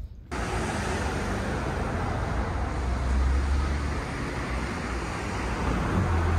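Street traffic noise: a steady hiss of road noise with a low rumble from passing vehicles, swelling about three seconds in and again near the end. It starts suddenly just after the start.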